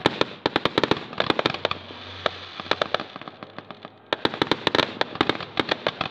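Fireworks display: quick volleys of sharp crackling pops, coming in three dense clusters with short lulls between them.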